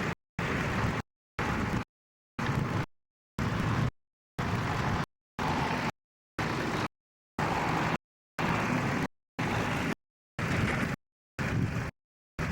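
Outdoor tractor engine and wind noise, cut into short pieces of about half a second, roughly once a second, by repeated dropouts to complete silence, the sign of a damaged or glitching audio track.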